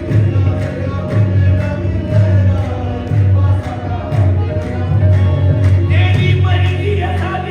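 Qawwali music played loud: group singing over a deep pulsing bass line and a steady percussion beat of about two strikes a second.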